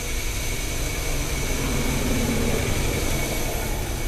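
Steady mechanical hum and hiss with a few fixed tones, unchanging throughout; no distinct clicks or knocks stand out.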